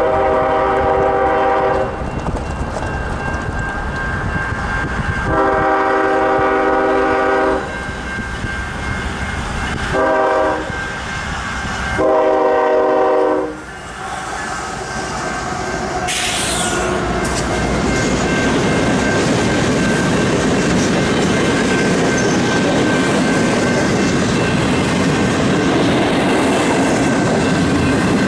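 A freight train's locomotive air horn sounds the grade-crossing signal: long, long, short, long. Then the locomotive and a string of double-stack intermodal cars rumble past at the crossing, wheels clacking over the rail joints.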